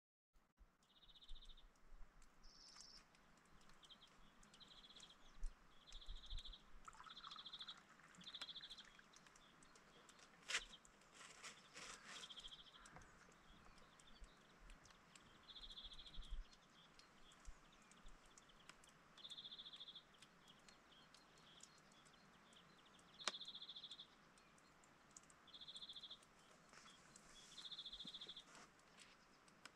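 A small songbird repeating a short, high song phrase every one to three seconds, faint, with a couple of sharp clicks among the phrases.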